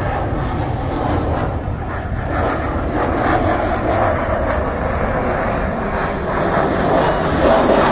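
Air force aircraft flying over, their engine noise a steady sound that grows louder toward the end.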